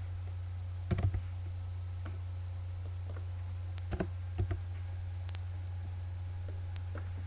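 Computer keyboard keystrokes and mouse clicks while numbers are typed in: a few short clicks in small clusters about a second in, around four seconds and again near the end, over a steady low hum.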